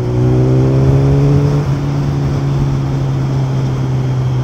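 Kawasaki superbike's engine and loud exhaust pulling under throttle, the pitch climbing for about a second and a half, dipping briefly as it changes gear, then holding steady until the throttle closes near the end.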